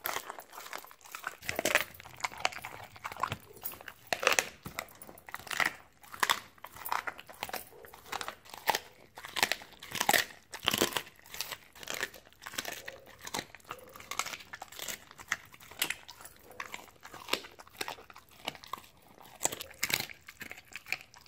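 Siberian husky chewing raw meat close to the microphone: wet chewing broken by frequent sharp, irregular crunches.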